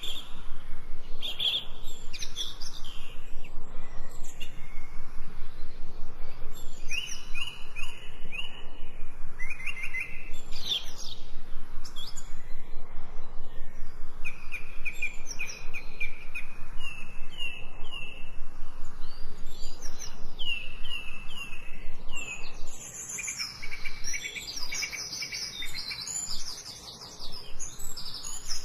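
Songbirds chirping and trilling in quick series of repeated notes, over a steady hiss of falling rain.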